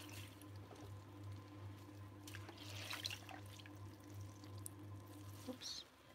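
Electric potter's wheel humming low and steady while wet hands and a sponge work a clay bowl on it, with faint wet squelches and drips. The hum cuts off near the end.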